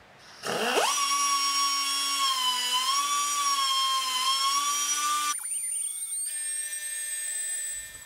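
Die grinder with a carbide burr spinning up and whining steadily as it grinds out a crack in a cast aluminium motor mount bracket. The pitch dips a little under load. About five seconds in the whine cuts off, leaving fainter high tones.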